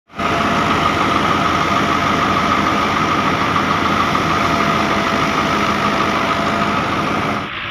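Wheat thresher running steadily under load as straw is fed into it, together with the Dabang 85 tractor engine driving it by belt: a loud, steady mechanical din with a constant high hum. It cuts off abruptly just before the end.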